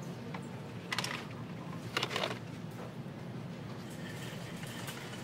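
Two brief plastic clatters about a second apart, from blister-packed pens being handled on pegboard hooks, over a steady low room hum.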